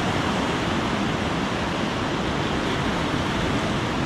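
Steady rushing noise of ocean surf washing on a rocky shore, mixed with wind on the microphone.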